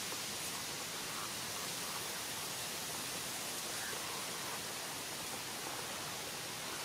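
Steady outdoor hiss with a few faint, short calls from a large flock of birds flying up over the water.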